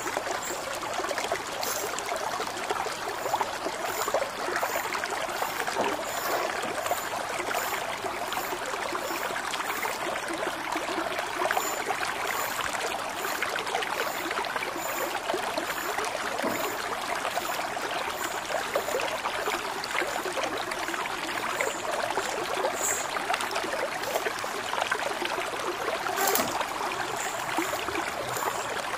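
Ridge gourd skin being scraped off against the curved blade of an aruvamanai: a steady, dense rasping made of many quick scraping strokes.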